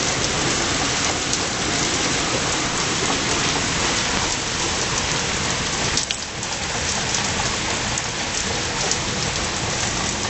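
Heavy rain pouring steadily onto wet stone paving, a dense hiss dotted with close drop splashes. A brief knock about six seconds in.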